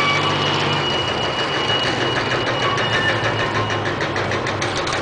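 Twin Detroit Diesel two-stroke engines of a small tug running, with a steady high whine over the diesel clatter; the engine note shifts about a second in.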